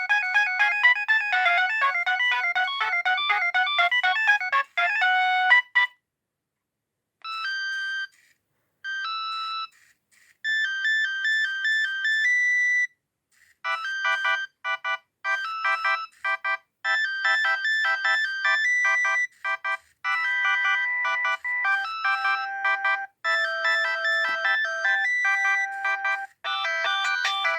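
Nokia 6610 mobile phone playing ringtones through its small speaker, thin electronic melodies of stacked notes. One tune stops about six seconds in. After a short silence come three brief snatches of notes, then a new, busier melody starts about halfway through and runs on.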